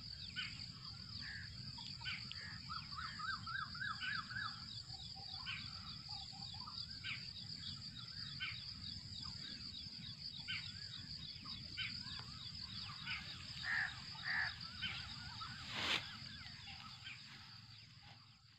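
Outdoor countryside ambience: birds chirping and calling over a steady high-pitched insect drone, with a single sharp click near the end.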